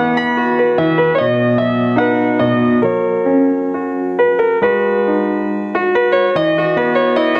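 Background music: piano or electric piano playing a melody over sustained chords.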